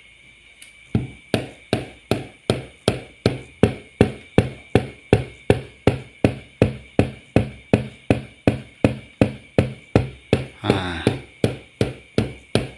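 Polytron active speaker failing to power up: from about a second in the woofer pulses with a 'blep blep' thump about three times a second. The supply voltage keeps collapsing, the fault traced to a dead final (output) transistor.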